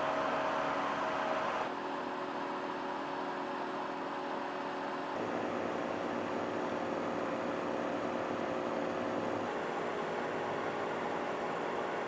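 Heat-powered stove fans spinning on hot sand, their small thermoelectric-driven motors running with a steady whir and a faint hum; the tone shifts slightly a few times.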